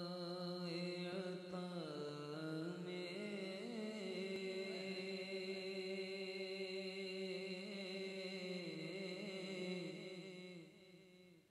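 A man reciting a naat unaccompanied into a microphone, drawing out long sustained notes with wavering melodic ornaments. The voice fades away about a second before the end.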